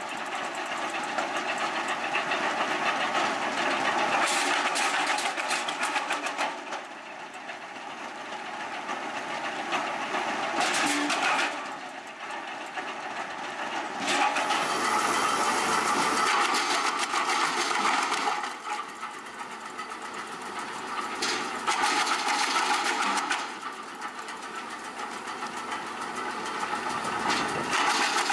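Tractor-PTO-driven roller wood chipper running and chewing through branches and logs fed into its hopper. The level rises and falls several times over the stretch.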